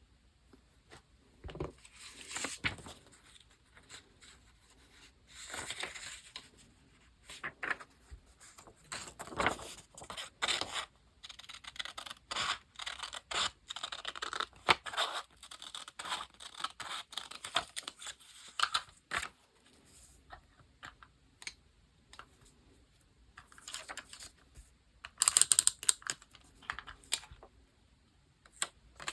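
Paper and stickers being handled while decorating a diary page: irregular tearing, scraping and rustling with light taps, loudest in a short burst a few seconds before the end.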